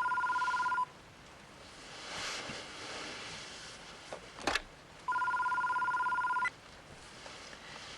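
Telephone ringing with a rapid two-tone electronic warble: the tail of one ring, then a second full ring of about a second and a half, with a short click between them.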